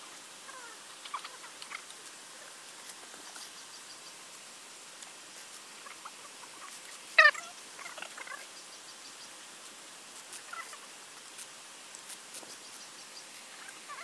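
Juvenile common kingfishers giving short, squeaky calls now and then, with one loud, sharp call about seven seconds in.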